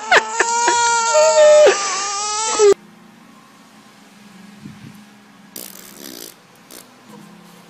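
A baby crying in loud, high, wavering wails that cut off abruptly a little under three seconds in. After that comes only faint hiss, with a brief scuffing noise about six seconds in.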